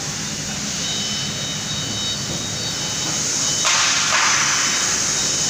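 CNC router spindle running with a steady high whine over a low hum; about three and a half seconds in, a loud rushing noise sets in, briefly breaks off, and continues as the bit cuts into the MDF board.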